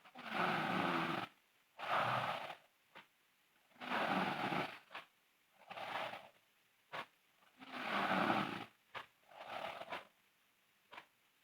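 A sleeping girl snoring loudly in a steady rhythm: each breath is a rough snore of about a second followed by a shorter, breathier sound, three breaths in all.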